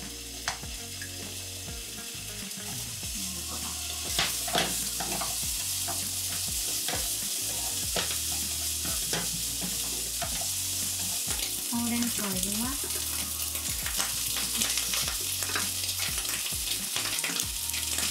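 Diced thick-cut bacon sizzling in a hot frying pan, the sizzle building over the first few seconds, with repeated clicks of a utensil stirring it against the pan. Spinach is being fried along with the bacon.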